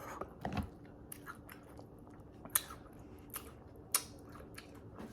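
Close-up mouth sounds of someone biting and chewing elote corn, with a few sharp, short crunches, the loudest about two and a half and four seconds in.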